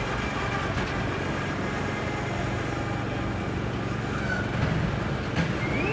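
Small petrol engine of a walk-behind reel mower running steadily while the mower is pushed across the turf, a low even hum.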